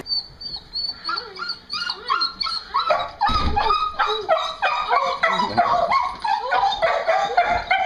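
A small dog whining and yelping in quick, high-pitched cries, over and over, in excited greeting of an owner back after a long absence.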